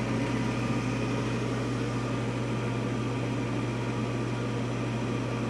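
Steady low machine hum, even and unchanging, with no other sound standing out.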